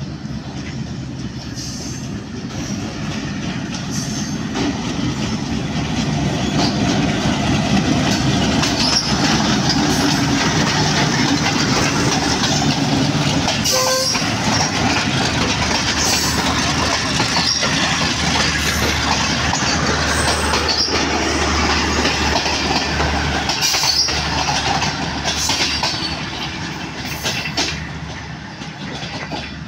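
Pakistan Railways HBU-20 diesel locomotive and its coaches passing slowly, the engine running under the steady rumble of the train, with irregular clacks as the wheels cross rail joints. The sound builds over the first several seconds, stays loud, and fades away near the end.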